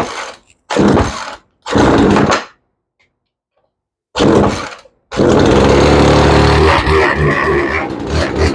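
Craftsman two-stroke chainsaw being pull-started on full choke: three quick pulls of the starter cord, a pause, a fourth pull, and about five seconds in the engine catches and keeps running with a wavering, uneven note.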